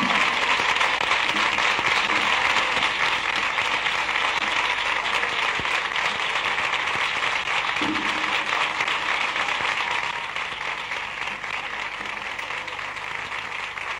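Audience applauding, a dense, even clapping that eases off a little near the end.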